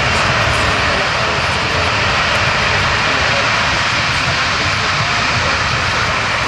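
Four turbofan engines of a C-17 Globemaster III running at power on the ground, a loud, steady jet rush that holds level without any change in pitch.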